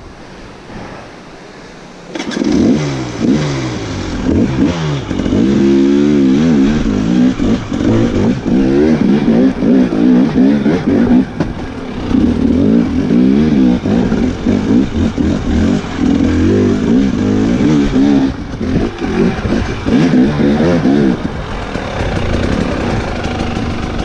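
Dirt bike engine being ridden over rough trail, revving up and down again and again, its pitch rising and falling with the throttle. It is quieter for about the first two seconds.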